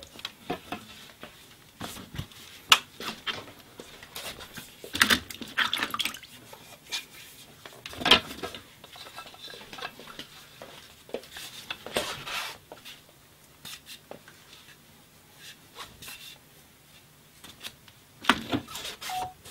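Bamboo poles knocking and clattering against each other and against a wooden straightening block, with short rubbing sounds, as a pole is bent straight through the block. The knocks come irregularly, the loudest a little under 3 seconds in and about 8 seconds in.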